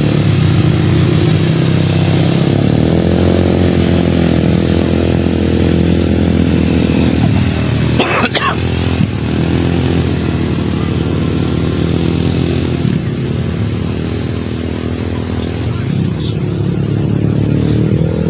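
ATV (quad bike) engines running, their pitch rising and falling as the riders throttle up and ease off. A short sharp noise cuts in about eight seconds in.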